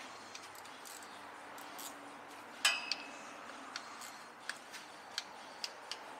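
Metal hand tools clinking: one sharp, briefly ringing clink a little under three seconds in, then a handful of light, irregular clicks.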